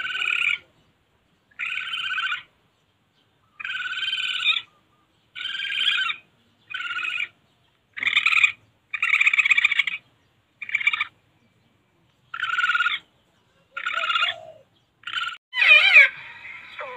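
Civet calls used as a hunting lure: a run of short, raspy, rapidly pulsed calls, about one a second. Near the end comes a louder, wavering yowl whose pitch slides up and down.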